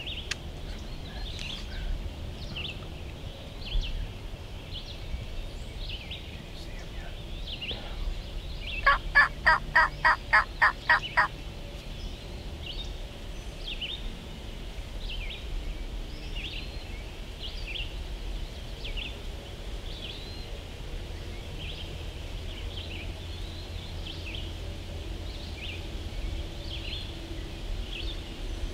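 Wild turkey gobbler gobbling once about nine seconds in, a rapid rattling run of about nine notes over two and a half seconds. A small bird chirps about once a second throughout.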